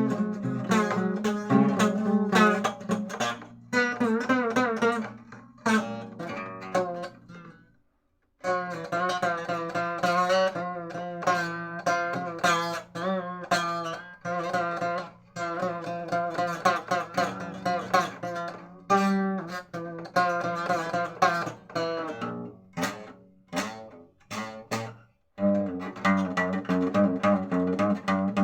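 Music led by plucked guitar, with quick note onsets and wavering sustained tones above. It breaks off briefly twice.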